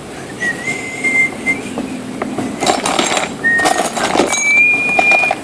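A person whistling a few long, held notes while metal hardware clatters and clinks as loose nuts and bolts are rummaged through.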